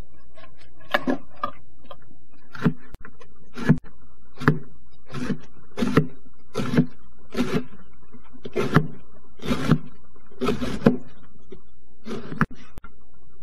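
A kitchen knife slicing a cabbage head into thin shreds on a plastic cutting board, each stroke a crisp crunch and a knock on the board, roughly one a second, about a dozen times.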